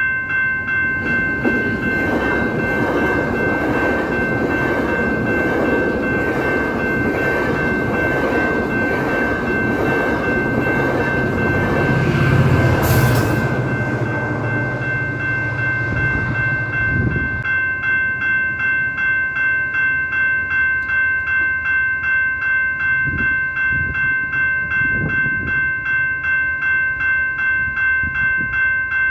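Level-crossing signal bells ringing steadily, about two strokes a second, while a GO Transit passenger train headed by an MP40 diesel locomotive passes at speed. The rush of the train and its engine swells to a peak near the middle and dies away by about two-thirds of the way in. After that the crossing bells ring on alone.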